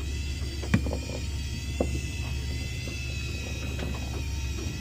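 Steady low drone of a boat's engine, with two sharp knocks, one just under a second in and another about a second later.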